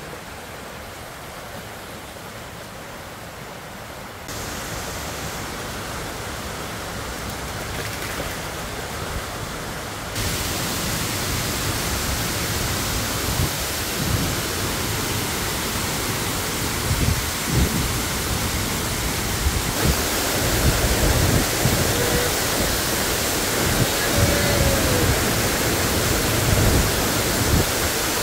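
Steady rush of a forest stream and waterfall that gets louder in steps, with low irregular thumps in the second half.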